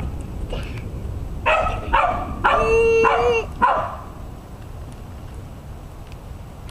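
Small dog barking and yipping, a quick run of calls in the first four seconds with one drawn out into a longer yelp near the middle.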